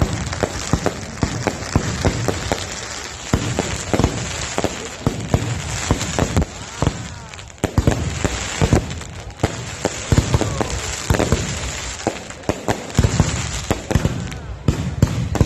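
Fireworks display going off: an irregular, dense run of sharp bangs over continuous crackling.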